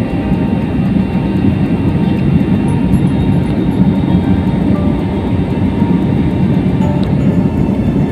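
Steady, loud rumble of engine and airflow noise inside an airliner cabin in flight, heard from a window seat.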